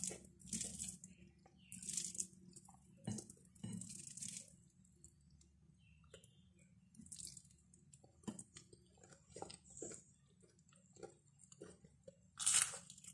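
A person eating rice and curry by hand: close chewing and wet mouth sounds, with short squishing smacks every second or so. There is a quieter stretch in the middle and a louder burst near the end.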